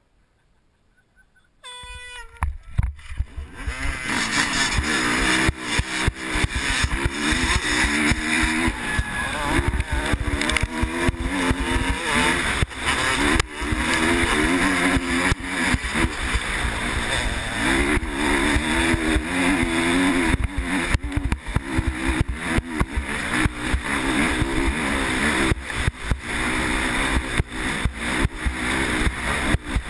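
Near silence for about two seconds, then dirt bike engines start at once and the rider's own dirt bike accelerates hard off the start line, its engine revving up and dropping again and again as it pulls through the gears. Wind buffeting and knocks from the rough trail hit the helmet-mounted microphone throughout.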